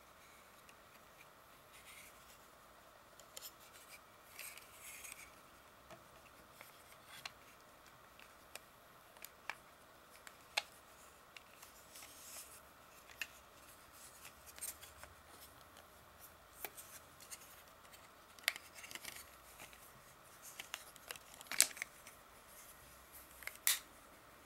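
Rugged plastic-and-silicone phone case being handled and pressed onto an iPhone 4: scattered plastic clicks and snaps with rubbing between them, the sharpest snaps in the last few seconds.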